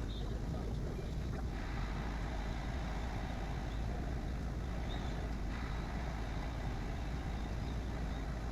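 Bambu Lab A1 3D printer running, a steady whir of fans and stepper motors. The mix shifts twice, about a second and a half in and again about five and a half seconds in, as the print moves change.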